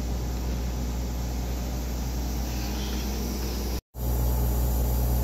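Steady hum of a running Siemens Dimension EXL 200 clinical chemistry analyzer. It drops out briefly about four seconds in and comes back a little louder.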